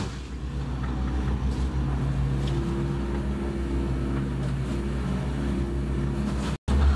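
A boat's engine running steadily under way, a low hum that holds one pitch, as the boat motors round to re-anchor. The sound cuts out for a moment near the end.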